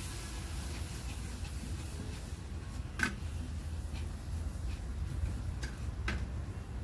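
A spoon scraping and knocking against a brass pot while onion-tomato masala is stirred over a wood fire. There are scattered clicks, the sharpest about three seconds in and another about six seconds in, over a steady low rumble.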